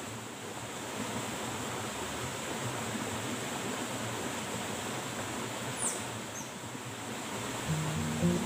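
Steady rush of flowing river water, with a brief high falling chirp about six seconds in. Background music comes in near the end.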